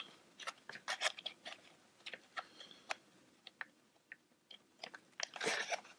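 Small irregular plastic clicks and taps as fingers handle a Raspberry Pi case and push a microSD card into its card slot, with a brief rustle a little past five seconds.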